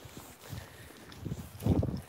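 Footsteps walking over grass: soft low thuds about twice a second, with one louder, longer thud just before the end.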